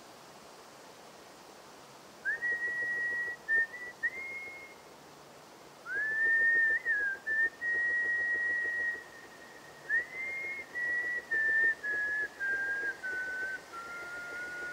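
A whistled melody of long held notes, each phrase swooping up into its first note. There are three phrases, starting about two, six and ten seconds in; the last steps downward and ends on a long low note.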